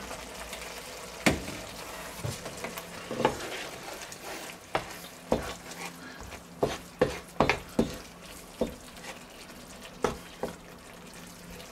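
Wooden spatula stirring a thick sauce in a nonstick frying pan, with irregular scrapes and knocks against the pan that come faster in the middle. Under them runs a faint steady sizzle of the hot sauce.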